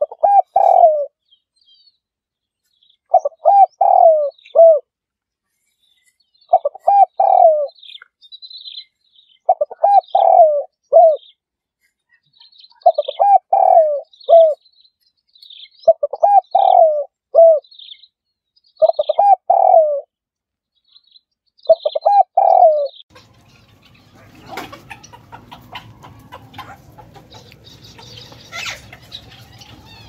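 Spotted dove cooing: a phrase of three or four falling coos, repeated about every three seconds, with small birds chirping faintly behind. About 23 seconds in, the cooing stops and a steady, noisier outdoor background takes over.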